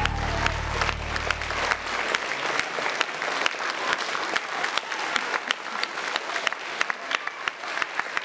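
Audience applauding, with the dense patter of many hands clapping, while the music's final sustained chord fades out over the first two seconds.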